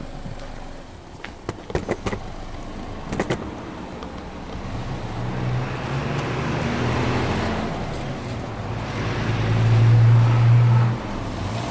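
Subaru Legacy 2.0R's EJ20 flat-four heard at the exhaust tips while being free-revved: the revs rise and are held, ease off, then rise again more strongly and drop back suddenly near the end. A few sharp clicks come about two and three seconds in.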